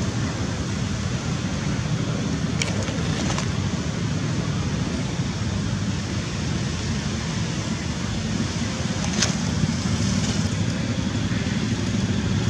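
Steady low rumble of outdoor background noise, with a few short faint clicks.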